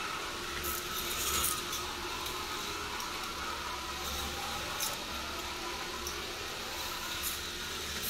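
Motor-driven chain lifts of K'NEX roller coaster models running: a steady hum with a couple of faint steady tones and scattered light clicks.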